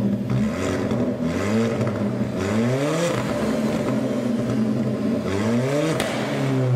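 Car engine revving, its pitch climbing steeply about two and a half seconds in and again near the end, with a sharp click at the top of the second rise.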